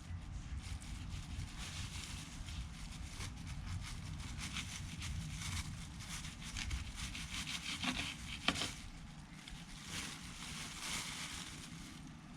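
Knife and hands working a freshly cut dragon fruit: uneven scraping and rubbing with many small clicks, two sharper clicks a little past the middle.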